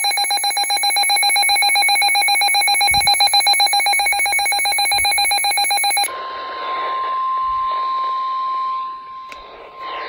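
Midland handheld weather alert radio sounding its alarm, a loud, rapidly pulsing electronic beep that signals a severe thunderstorm warning. About six seconds in the beeping cuts off, and the radio plays the broadcast's steady 1050 Hz warning alarm tone over hiss.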